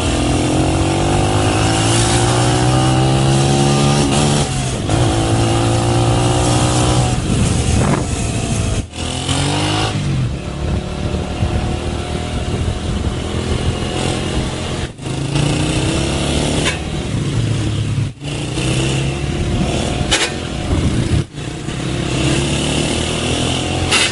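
Motorcycle engine revving hard in long rising pulls as the rider accelerates through wheelies. The pitch climbs several times, with brief dropouts between.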